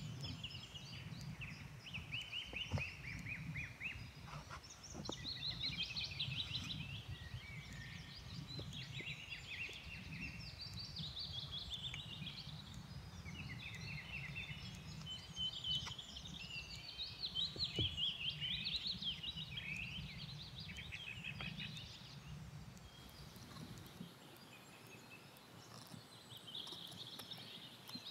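Songbirds singing in rapid chirping trills, one phrase after another, over a low steady rumble. A few faint knocks come from handling the hatchet head and wooden handle.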